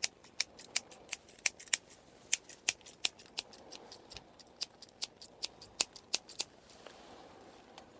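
Scissors snipping close to the microphone in quick succession, about three crisp snips a second, thinning out about six seconds in.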